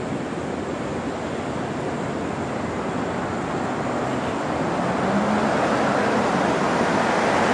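Steady city street traffic noise, growing louder over the last few seconds as a vehicle draws near.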